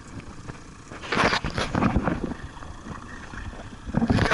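A walleye in a landing net swung aboard a boat and set down on the deck: a loud short scuffling burst about a second in, a smaller one just after, and another near the end, over a steady background of boat and wind noise.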